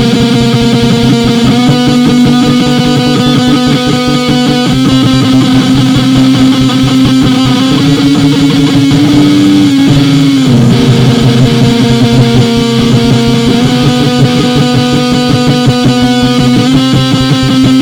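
Very loud, distorted music led by electric guitar, holding sustained chords that change about every three seconds, with a short rise in pitch about halfway through.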